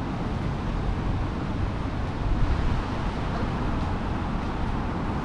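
Steady city street ambience of traffic on a wet road: a constant low rumble with a noisy hiss, with no single vehicle or event standing out.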